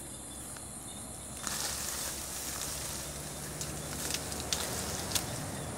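Leafy branches rustling loudly as they are grabbed and pulled apart by hand, starting about a second and a half in, with a few sharp cracks of twigs near the end. Insects trill steadily underneath.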